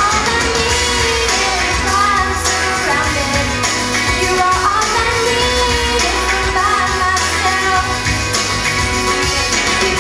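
A young girl singing a pop song solo into a handheld microphone over instrumental backing music, in a large hall.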